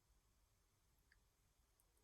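Near silence: room tone, with a couple of very faint small ticks.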